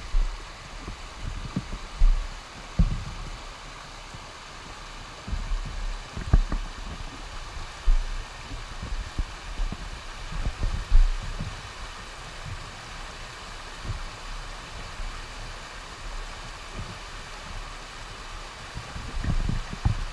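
River water rushing steadily over shallow rapids, heard close by, with irregular low thumps and bumps scattered through it.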